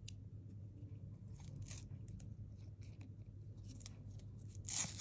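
Fingers handling and fitting small foam flower pieces: soft scattered scrapes, crinkles and clicks, with a louder crinkling rustle near the end, over a steady low hum.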